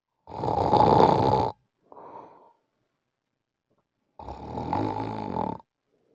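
A sleeping person snoring: two loud snores, each over a second long, about four seconds apart, with a fainter breath between them. It is the heavy snoring of severe obstructive sleep apnea.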